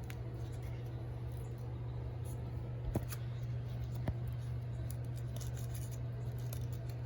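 Scissors cutting dry leaves into small pieces: two short, sharp snips about three and four seconds in, over a steady low hum.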